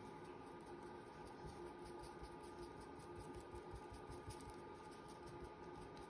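Faint, small, quick taps and scratches of hands working on paper at a craft table, over a steady low hum in the room.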